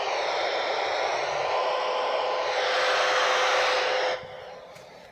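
Handheld FM transceiver's speaker hissing with static from the AO-85 satellite downlink, no voices coming through, with a faint steady tone in the noise. The hiss drops away suddenly about four seconds in.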